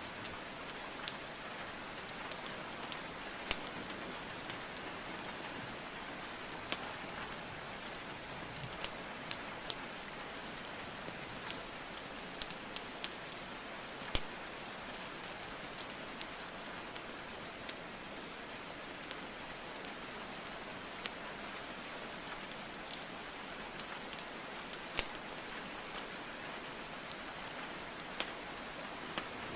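Steady rain hiss mixed with the irregular sharp pops and crackles of burning logs in a fireplace, with one louder pop about halfway through.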